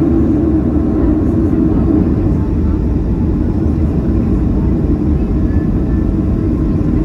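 Steady low rumble inside the cabin of a Boeing 737-700 taxiing, its CFM56 engines at taxi power.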